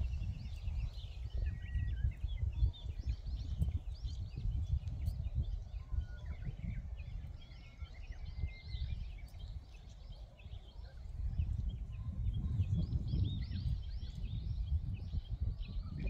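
Wind buffeting the microphone with a gusty low rumble that eases a little about halfway and builds again, under many small birds chirping and trilling throughout.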